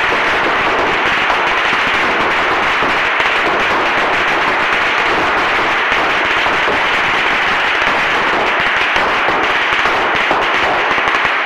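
A long string of Chinese firecrackers going off in a loud, dense, unbroken rapid crackle.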